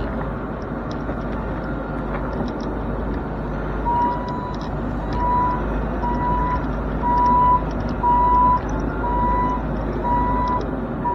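Bobcat E42 mini excavator's engine running steadily under work. From about four seconds in, its travel alarm beeps at an even pace, about one beep every three-quarters of a second, louder than the engine.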